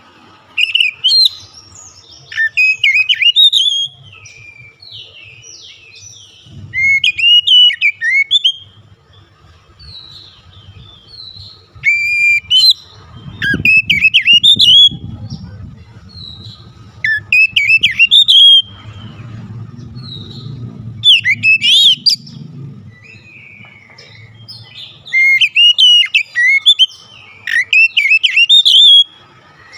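Oriental magpie-robin (kacer) singing loud bursts of varied whistled notes and rapid trills, each a second or two long, repeated every few seconds with short pauses between.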